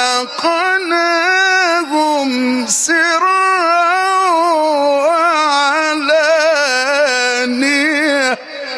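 Male Quran reciter chanting in the melodic mujawwad style into a microphone. He holds one long, richly ornamented line with many small pitch turns and a few short breaks, and it cuts off sharply about half a second before the end.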